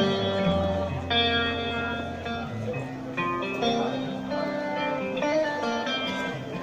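Live band playing an instrumental passage: guitar picking single notes that ring on one after another over a held bass line.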